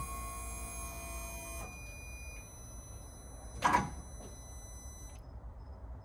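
Ferrari F430 with the ignition switched on just before a cold start: steady high electrical whines that cut out in steps about two seconds in, a brief sharp noise about three and a half seconds in, then faint regular beeping.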